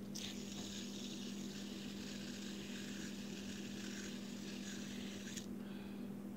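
Fidget spinner spinning, a steady high whirring hiss from its bearing that starts just after the beginning and cuts off suddenly with a click about five seconds in.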